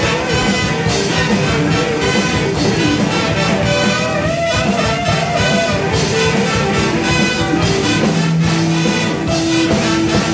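Live show-choir band playing an up-tempo number, loud and steady, with electric guitar and brass over a regular beat.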